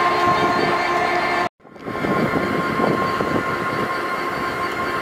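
Class 66 diesel locomotive, with its two-stroke V12, running as it moves along the track, a steady whining engine note. About a second and a half in, the sound cuts out abruptly for a moment, then a noisier rail rumble of a train pulling into the platform follows.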